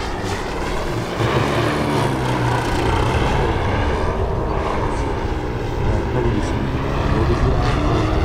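Large-scale RC Carbon Cub model's 125cc gasoline engine (Hornet HE125) swinging a 29-inch propeller in flight. It runs steadily, its pitch drifting up and down as the plane manoeuvres.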